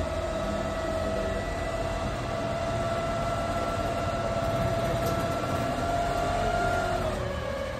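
A glass-bottom tour boat's motor running with a steady whine over a low rumble; the whine drops slightly in pitch near the end, as the boat eases off.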